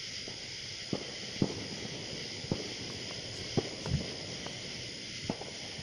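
Firecrackers going off: about seven short, sharp pops at uneven intervals over a steady hiss.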